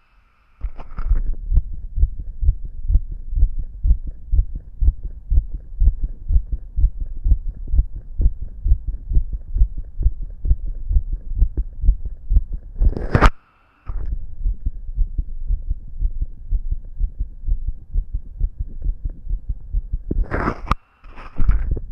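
A man's own heartbeat picked up through a stethoscope chest piece pressed to the left chest: steady, repeating low thumps. Twice, about halfway through and near the end, a brief loud rubbing noise cuts in and the sound drops out for a moment as the chest piece shifts on the skin.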